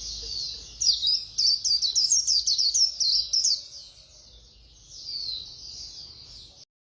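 White-eye (khuyên) singing its fast twittering 'líu' song: a continuous high warble, with a quick run of sharp, louder notes from about one second in until three and a half seconds, then softer warbling until it cuts off near the end.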